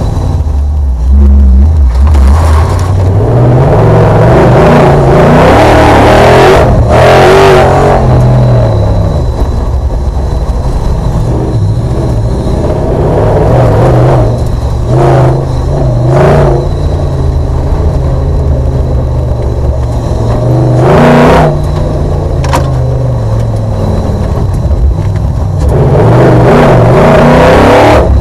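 Audi V8 engine of an off-road special race car heard from inside the cockpit at race pace, the revs climbing and dropping again and again with throttle and gear changes. Several short bursts of noise cut through as the car crosses rough ground.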